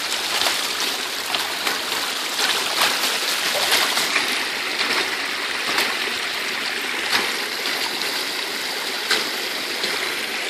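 Creek water rushing steadily over and through a beaver dam, with a few short splashes or knocks scattered through it.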